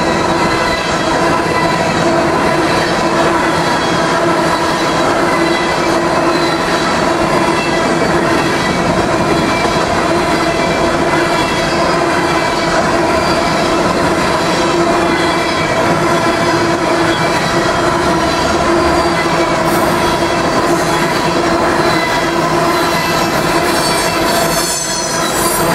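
Empty steel coal hopper cars of a freight train rolling past close by, their wheels running on the rails with a continuous rumble and clatter. Steady squealing tones from the wheels ride over the rumble throughout.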